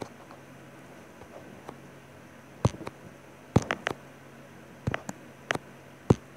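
Scattered sharp clicks and light taps from a bunch of dried foliage stems being handled and knocked about over a craft table, several in quick succession in the second half, over a faint steady hum.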